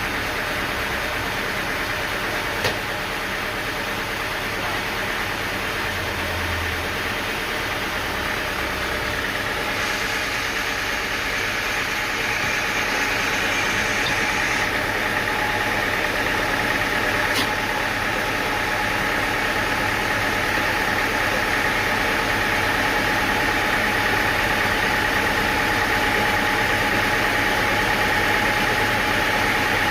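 An engine running steadily, slightly louder from about ten seconds in, with a sharp click near three seconds and another near seventeen.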